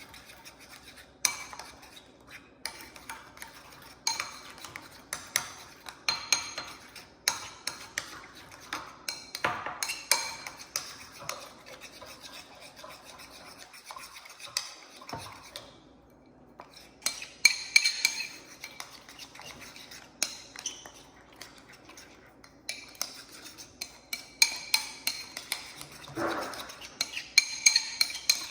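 A utensil stirring a ketchup-based sauce in a bowl, clinking against the sides in quick, irregular taps, with a short pause about halfway through.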